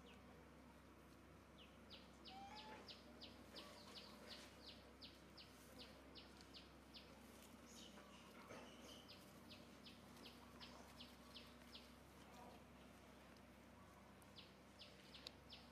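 Faint bird calls: a run of short high chirps repeated about three times a second. The chirping stops and starts again twice.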